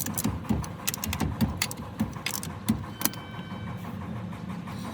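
Irregular light metallic clicks and knocks, about a dozen in the first three seconds, over a steady low hum, then quieter.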